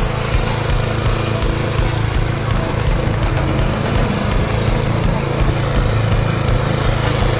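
Walk-behind snow blower's small engine running steadily under load as it is pushed through snow.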